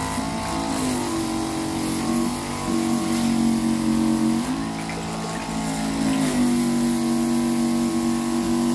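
Dual-motor 12 V DC diaphragm pump running under load, its steady hum stepping in pitch a few times as the outlet is squeezed by hand to raise the pressure and current draw. Water hisses as it sprays from the partly closed outlet.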